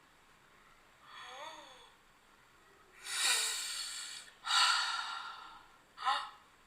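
A person's breathy vocal sounds, a series of gasps and heavy breaths with a short voiced grunt near the end, four in all.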